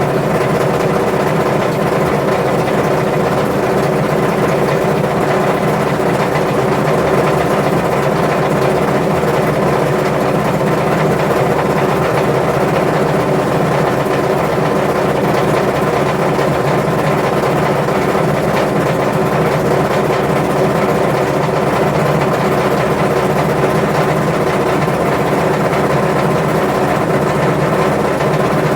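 Washing machine spinning with its drum bearings gone, giving a loud, continuous rapid rattle that sounds like a machine gun: the sign of worn-out drum bearings.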